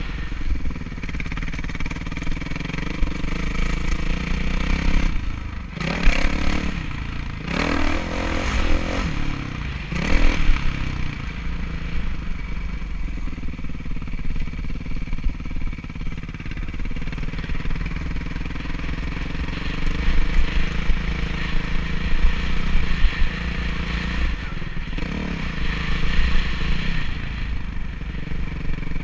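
Kawasaki KX450F single-cylinder four-stroke motocross engine, heard from the rider's helmet, running steadily with several quick revs up and down between about five and ten seconds in. Wind rumbles on the microphone.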